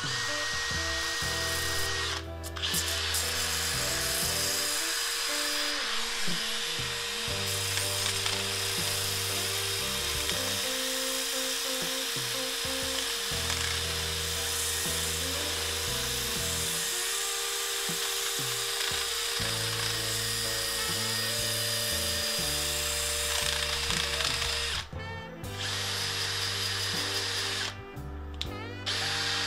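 Power drill spinning a hook-and-loop sanding disc against the exterior of a claret ash bowl turning on a wood lathe: a steady whirr with a sanding hiss that dips briefly a few times, about two seconds in and twice near the end. Background music plays underneath.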